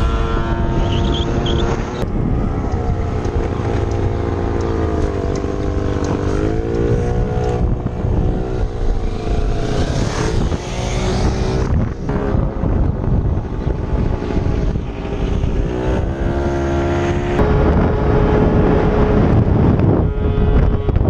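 Motorcycle engine heard from the rider's helmet, its pitch rising and falling repeatedly as it revs and changes gear, over a steady low rumble. The sound changes abruptly a few times.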